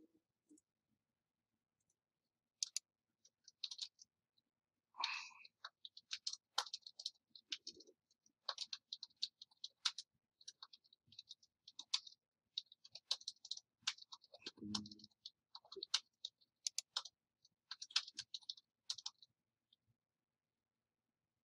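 Faint computer keyboard and mouse clicks, coming in irregular clusters of quick taps, with a brief low thump about two-thirds of the way through.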